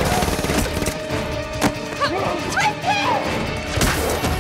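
Action-film fight soundtrack: loud music mixed with a rapid run of hits, crashes and impacts, with some gliding, wailing pitched sounds about two to three seconds in.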